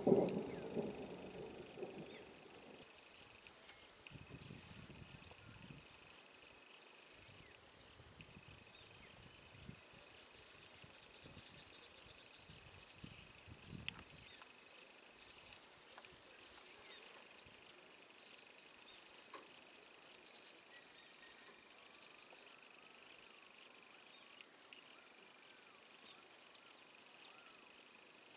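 Insects, cricket-like, chirping in an even, high-pitched pulse a few times a second, with a fainter steady insect drone under it. A low rumble fades out in the first two seconds, and faint low rumbles recur until about halfway through.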